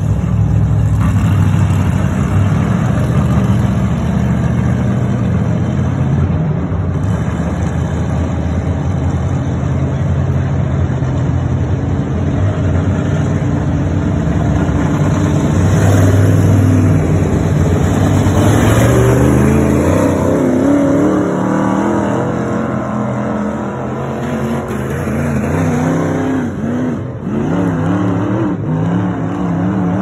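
Dirt-track race car engine running on the track, revs rising and falling as it laps, with a few brief dips in the sound near the end. The owner says the engine coughs and will not get up to speed.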